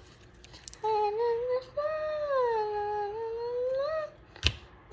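A child humming a wordless tune in two slow, gliding phrases, followed near the end by a sharp click.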